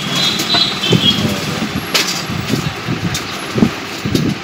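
Steady vehicle engine noise, with a sharp click about two seconds in.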